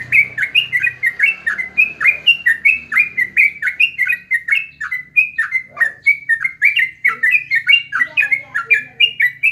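Yellow-vented bulbul (trucukan), a kept songbird, singing a fast, continuous chattering song of short sliding notes, several a second, without a pause.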